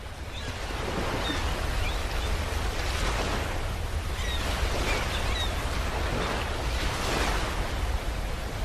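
Steady rushing noise with a deep rumble underneath and a few faint short chirps, like distant surf: a space-style sound effect presented as the sound of the star UY Scuti.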